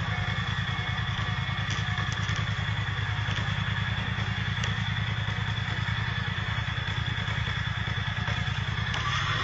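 A vehicle engine idling steadily, a fast even low throb, heard through a dashcam. A thin steady high tone runs over it.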